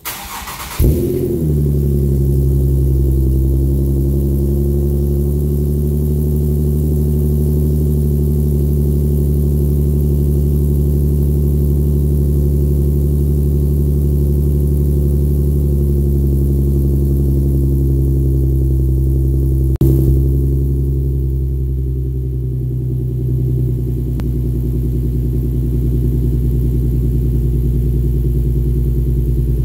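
Infiniti Q50's 3.0-litre twin-turbo V6, with test pipes and an ARK GRiP cat-back exhaust, cranking and catching on a start, with a brief flare in revs. It then settles into a steady, fast post-start idle. About twenty seconds in there is a click, and the idle eases down a step.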